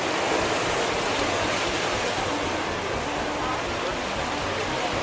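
Steady rushing wash of ocean surf on the beach.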